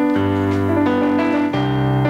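Digital keyboard playing sustained chords, moving to a new chord every half second to a second, as an instrumental passage in the chorus's live performance.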